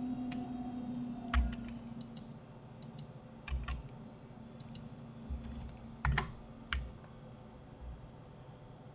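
Scattered computer keyboard keystrokes and mouse clicks, irregular sharp taps with dull low thuds, a second or so apart, while working in 3D software. A faint low hum fades out about a second and a half in.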